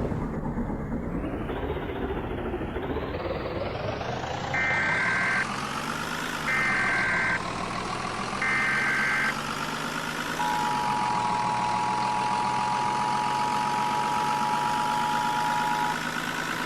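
NOAA Weather Radio emergency alert: three short screeching data bursts, then a long steady alarm tone, the signal that a National Weather Service warning follows, here a severe thunderstorm warning. Under it a vehicle engine runs, its pitch rising as the vehicle speeds up.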